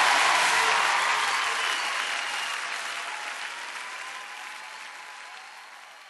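Concert audience applauding, fading out steadily.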